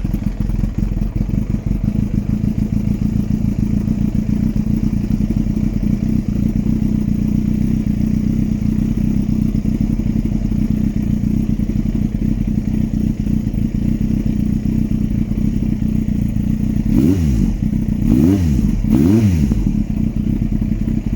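Yamaha FZS1000 Fazer's inline-four engine idling steadily just after starting, then revved briefly three times near the end.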